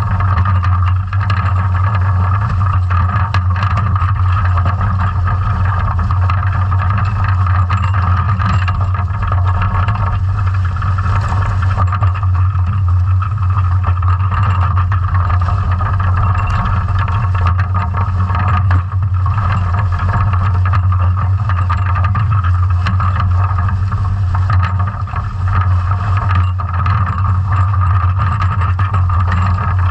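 Underwater noise of a sea scallop dredge being towed along the seabed: a steady low hum with a higher drone above it, a rush of water and sediment past the camera, and scattered small clicks and knocks.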